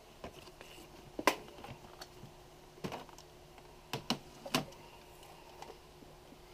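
Handling noise: about five scattered knocks and clicks as a Polaroid 180 camera and its hard carrying case are picked up, closed, moved and set down on a wooden desk. The loudest knock comes about a second in, with a quick cluster of them around four seconds in.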